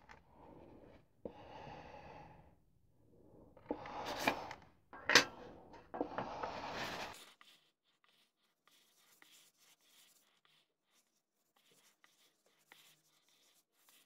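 Tins of finishing paste being handled and set down on a metal lathe bed: rustling and scraping with two sharp knocks about four and five seconds in. After that, faint rubbing of a cloth as the paste is wiped onto the wood.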